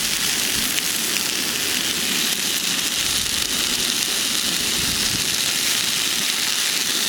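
Sausages sizzling steadily as they grill, a constant hiss with faint crackles.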